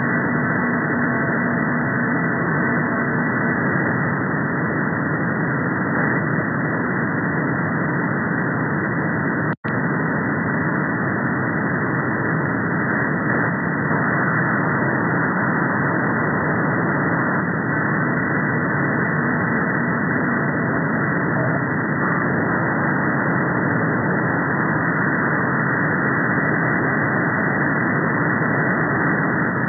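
Shortwave-style radio static from a software-defined receiver in upper sideband mode: a steady hiss cut off at about 2 kHz. For the first few seconds, faint steady tones from the 38.75 MHz meteor radar's frequency comb sit in the hiss. The sound drops out for an instant about ten seconds in.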